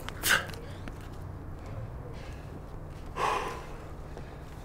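A rock climber's two sharp, forceful breaths of effort while pulling through hard moves, the second a little longer, about three seconds after the first.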